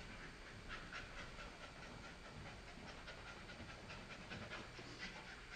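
An American Staffordshire Terrier panting faintly in short, uneven breaths, a sign of the stress the trainer describes during leash work.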